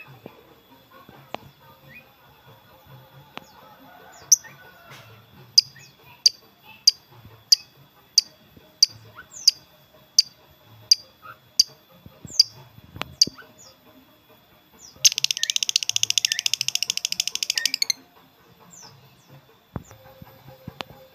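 A songbird chirping: a regular series of short, sharp, falling high notes about one and a half a second, then a loud fast trill lasting about three seconds, then a few scattered notes.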